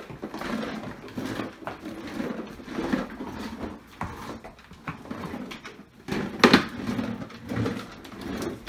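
Plastic ride-on toy car rolling over a hardwood floor, its wheels rumbling and rattling unevenly, with one loud sharp knock a little past the middle.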